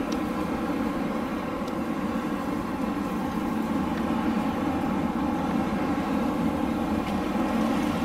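Winter wind blowing steadily, a low, even rush of noise that grows slightly louder partway through.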